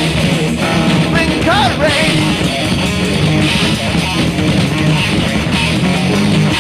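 Instrumental band music: electric guitar strumming over bass, with a sliding lead note about a second and a half in.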